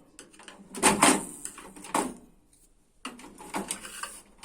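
A few knocks and scrapes from washing machine casing parts being handled during disassembly: a cluster about a second in, another at two seconds, and several between three and four seconds in.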